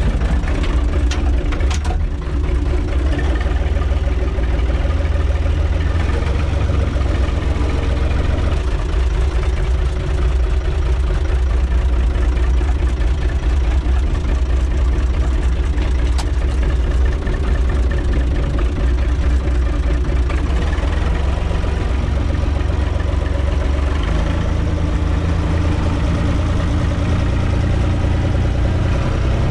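A UTB 445 tractor's diesel engine running steadily, heard from inside its cab. A few light clicks and knocks come about a second or two in.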